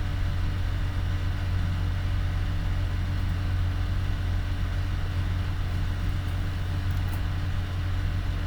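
Steady low hum with a faint hiss, unchanging throughout: background noise picked up by the microphone while no one speaks.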